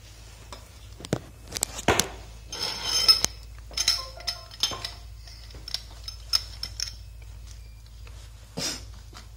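Metal clinks, knocks and scraping from a pipe wrench being set on and turned against a metal pipe fitting. There are sharp knocks and a rattly stretch in the first few seconds, lighter ringing clinks after that, and one more knock near the end.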